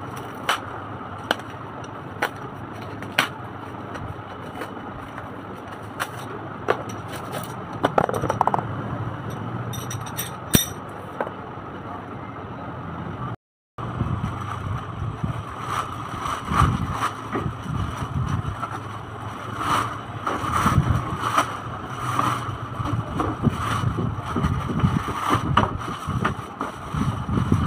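Brown paper packaging crackling and tearing as it is pulled off a plastic toy handle, with many sharp crackles. After a cut about 13 seconds in, a clear plastic bag rustles and crinkles continuously as it is worked off a plastic ride-on toy car.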